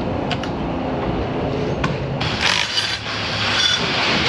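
Light handling clatter, then from about two seconds in a cordless power tool running steadily with a high whir as it drives a bolt on the engine bracket.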